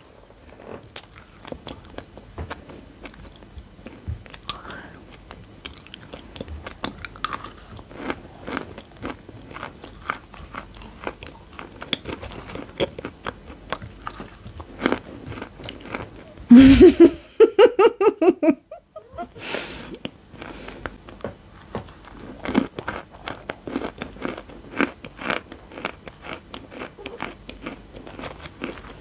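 Close-miked crunching and chewing of dry chalk chunks and crumbs, with a metal spoon scooping through the crumbs in the bowl. About seventeen seconds in, a brief loud voiced cry cuts across the crunching.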